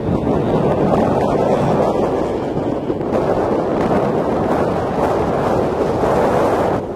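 Wind buffeting the camcorder's microphone: a steady, low rushing noise with no engine tone standing out.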